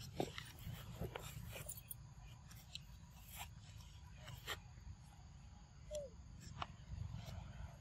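Faint outdoor sounds around macaques on stone ground: a steady low rumble, scattered small clicks and ticks, and one short falling squeak about six seconds in.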